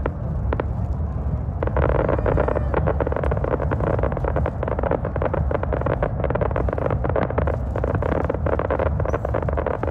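Aerial fireworks bursting and crackling, many sharp pops over a continuous low rumble. About one and a half seconds in, the crackling thickens into a dense, rapid fizz of pops.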